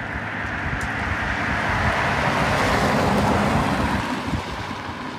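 A vehicle driving past, its road and tyre noise swelling to a peak about three seconds in and then fading away.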